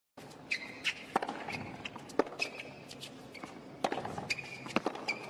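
Tennis rally on a hard court, starting just after a moment of silence: sharp racquet strikes and ball bounces at uneven intervals, the loudest hit about two seconds in, with short shoe squeaks between them.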